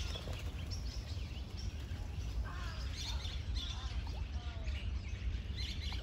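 Many small birds chirping and calling in a tree canopy, short high chirps with a few lower curving calls a couple of seconds in, over a steady low rumble.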